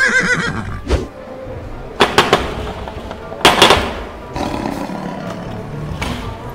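Knocking on a wooden door: a few quick raps about two seconds in, then a louder cluster of knocks a second and a half later. Before that, a wavering, whinny-like comic sound effect fades out in the first second, and a roar-like sound follows the knocks.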